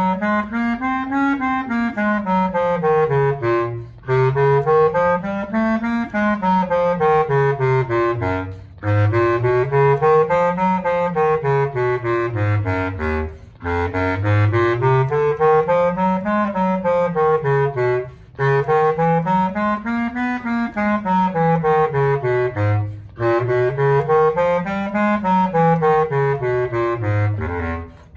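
Bb bass clarinet played solo, climbing and falling in stepwise scale-like runs. About six up-and-down phrases of four to five seconds each, with short breaks for breath between them.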